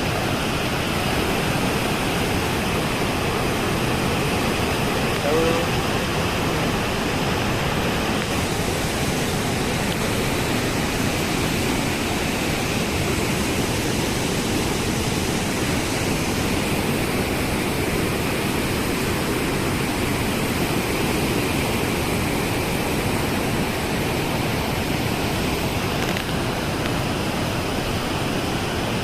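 Heavy floodwater rushing through open dam gates, a steady loud noise that doesn't let up.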